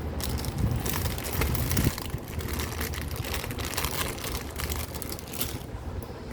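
Plastic packaging rustling and crinkling as jewellery pieces are unwrapped, in irregular crackly bursts over a low steady hum.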